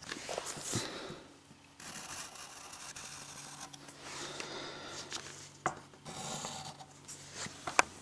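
A pencil drawing lines on notebook paper: the tip scratches across the paper in several separate strokes, with a few light ticks in between.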